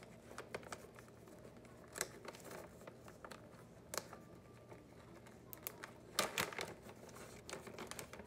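Plastic dog-treat bag crinkling as hands dig treats out of it: faint scattered rustles and clicks, busier about six seconds in.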